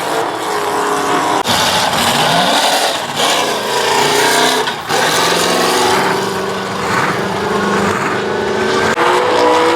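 Car engine revving hard during a burnout, its pitch rising and falling repeatedly, over the noise of spinning, squealing tyres.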